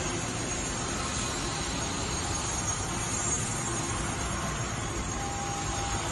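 Steady factory-floor noise, an even rushing din of machinery with no clear rhythm, and a brief faint tone about five seconds in.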